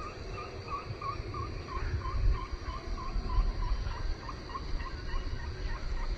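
A bird calling a steady run of short chirping notes, about three a second, over a low, uneven rumbling noise.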